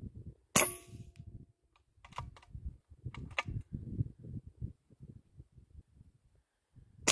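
A sharp rifle shot about half a second in, with a short metallic ring after it, and another shot right at the end. Between them come footsteps crunching over dry, stony ground and a few fainter clicks.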